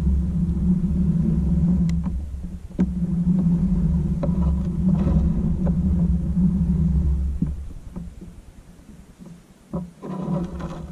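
Jackson Bite FD kayak's pedal drive running as it is pedalled: a steady low hum that dips briefly and then stops about seven and a half seconds in, followed by a couple of light knocks.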